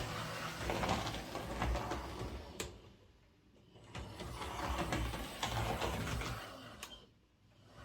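Hornby OO gauge Class A1 model locomotive running on the layout, its small motor whirring and its wheels clicking over the rail joints and points. It is now running cleanly, its rear pony truck wheels removed. The sound fades away about three seconds in, comes back about a second later, and fades again near the end.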